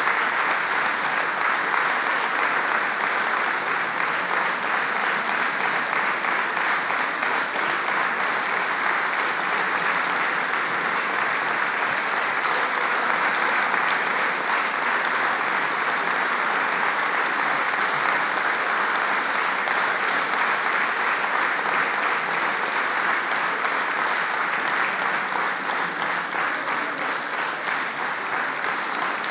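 A theatre audience applauding, a long steady ovation that eases slightly near the end.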